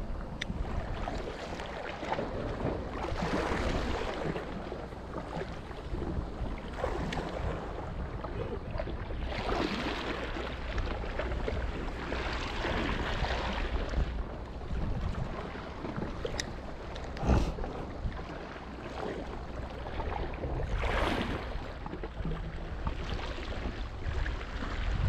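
Water lapping and sloshing in surges every few seconds, with wind buffeting the microphone as a steady low rumble. A single sharp knock about seventeen seconds in.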